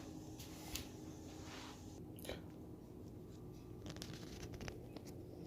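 Quiet room tone with a steady low hum and a few faint, brief clicks and taps spread through it.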